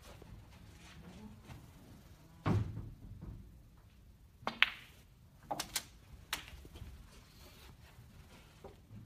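Snooker balls clicking as shots are played: a sharp ringing click about halfway through, then three more clicks over the next two seconds, after a dull thump a little after two seconds in.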